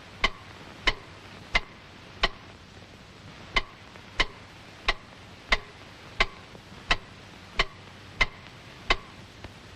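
Cartoon cuckoo clock ticking loudly and evenly, one sharp tick about every two-thirds of a second, with one beat skipped about three seconds in.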